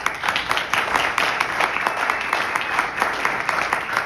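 An audience applauding: many hands clapping quickly and unevenly, thinning out near the end.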